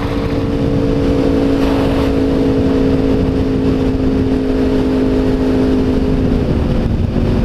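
Sport motorcycle engine running at a steady highway cruising speed, a steady drone over rushing wind noise. The engine note steps slightly lower about six seconds in.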